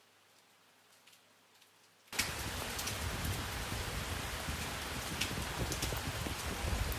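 Rain falling on wet pavement and a puddle: a steady hiss with scattered louder drop splats, starting suddenly about two seconds in. Before that there is only faint room tone with a few soft clicks.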